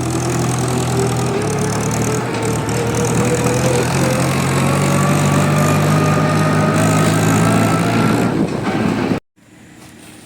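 Engine of farm machinery at a rice harvest running loud and steady, with a whine that climbs slowly in pitch; it cuts off suddenly near the end.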